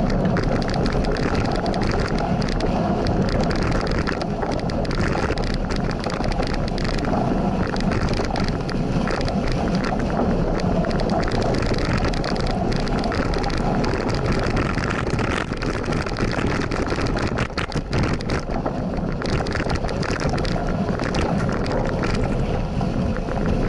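Wind rushing over the microphone of a cross bike ridden along a dirt singletrack, with steady tyre noise on the dirt and frequent small clicks and rattles from the bike jolting over the bumpy trail.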